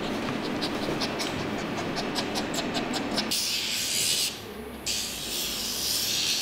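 A run of small sharp clicks while a puppy's nails are being clipped, then the rasping hiss of a nail file working the claws in two stretches with a short break between them.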